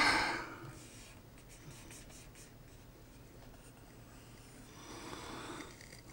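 Faint rubbing and brushing of a hand on the plastic shell of a Gravastar robot Bluetooth speaker, with a few light ticks. A louder noise is dying away at the very start.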